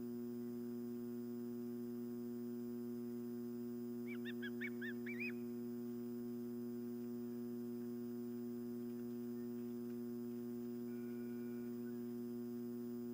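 Steady electrical mains hum from the nest camera's audio, with a quick series of about six short, rising-and-falling whistled osprey calls about four seconds in.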